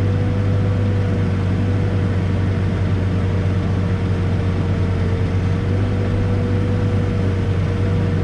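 Backhoe diesel engine running steadily while digging, a constant low drone with a thin steady whine above it.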